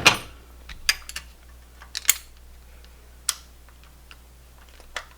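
Hand tools clicking and tapping on a 1998 Honda Civic's valve train during a valve lash adjustment: a scatter of sharp metallic clicks, some in quick pairs, with quiet gaps between them.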